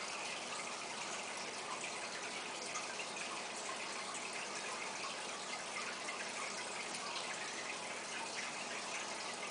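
Aquarium water running and splashing steadily: an even, unbroken hiss that is bright rather than deep, as from the tank's filter return or aeration.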